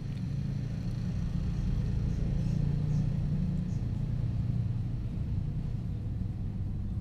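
Orange tabby kitten purring close up: a steady low rumble that swells and eases slightly.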